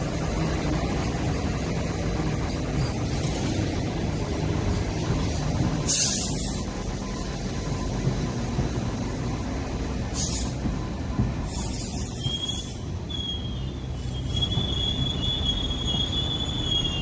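Hong Kong Light Rail Phase 1 train running slowly over track with a steady low rumble and a few short hisses. About twelve seconds in, as it takes a tight curve, its steel wheels start a high, steady squeal that holds for several seconds.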